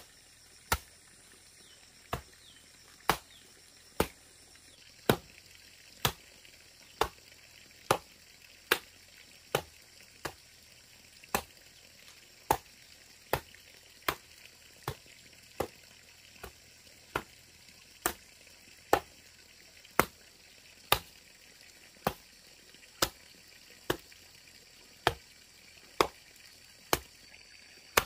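A hand tool chopping in steady strokes: about one sharp strike a second, some harder than others.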